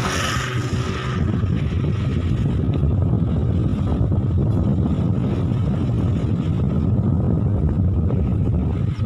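Steady low rumble of a vehicle on the move, with a brief hiss in the first second.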